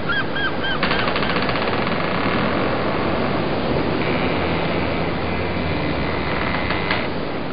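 Boat engine running under steady wind and water noise. A fast, even rattle sounds for about two seconds, starting about a second in.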